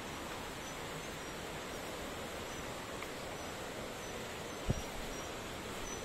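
Steady outdoor forest ambience, an even hiss-like background with faint short high chirps of insects scattered through it. One low thump stands out about three-quarters of the way through.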